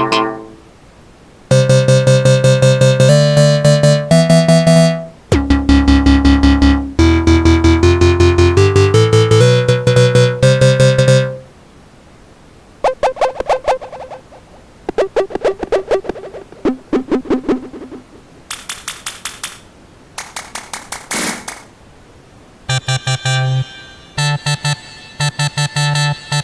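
Vina House sample-pack previews played one after another: short synth melody loops of fast repeated notes, a deep bass hit, plucked synth notes and brief high noise sweeps, separated by short gaps.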